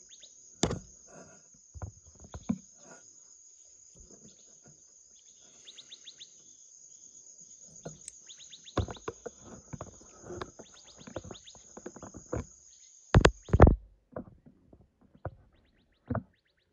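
Steady high-pitched chorus of crickets and other insects, broken by scattered sharp knocks and clicks and a few short chirps. About thirteen seconds in comes a quick run of the loudest knocks, and the insect sound then cuts off suddenly.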